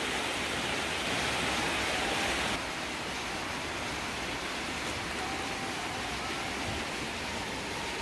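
Valley stream running over a rocky bed: a steady rushing hiss of water that drops a little in level about two and a half seconds in.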